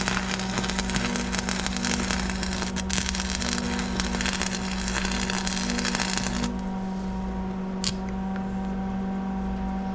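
Stick welding arc crackling as a bead is run with a 6013 rod on a split PTO shaft, stopping about six and a half seconds in. A steady hum continues underneath.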